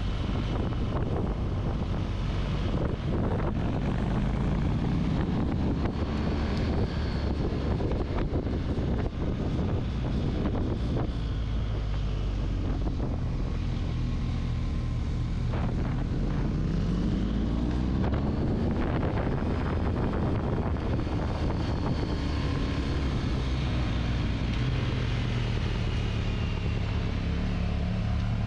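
Adventure motorcycle's engine running under way, its revs rising and falling through the bends, with a clear climb in pitch about sixteen seconds in. Wind buffets the microphone throughout.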